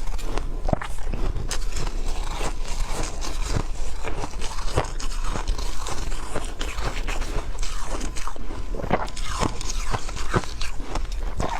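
A person biting and chewing ice, close to the microphone: a continuous run of sharp, crackling crunches.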